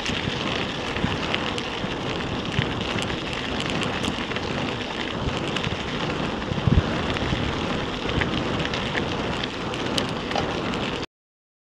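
Mountain bike riding fast on a gravel forest road: a steady grainy crunch and hiss of the tyres on loose gravel, with small rattling ticks from the bike. There is one low thump about seven seconds in, and the sound cuts off suddenly just before the end.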